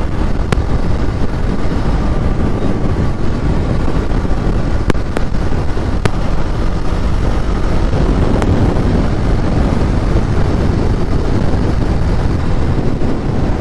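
Steady wind rush on the microphone over motorcycle engine and road noise, riding at highway speed.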